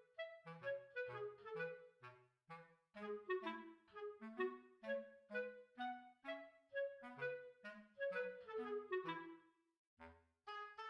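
Light background music: a clarinet-like woodwind melody in short, bouncy notes over a plucked bass line, with a brief pause near the end.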